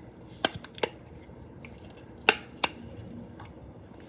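Sharp clicks from Triple Dimple fidget toys as their silicone bubbles are pressed: two quick clicks about half a second in, then another pair about two seconds later, with a few fainter ticks between.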